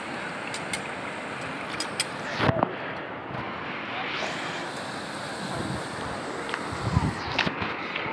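Steady rushing noise of a fast-flowing shallow river, mixed with wind on the microphone, with a few faint clicks.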